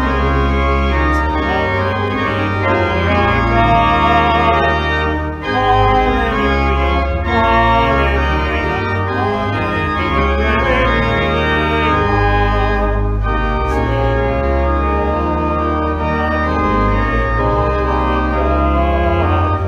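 Church organ playing a hymn, with sustained chords over a deep pedal bass and a brief break about five seconds in.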